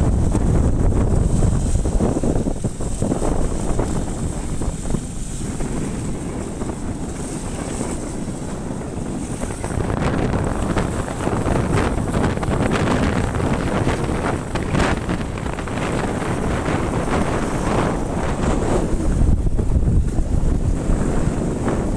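Wind buffeting the microphone: a heavy, uneven rumble that swells and eases in gusts, loudest at the start and again near the end.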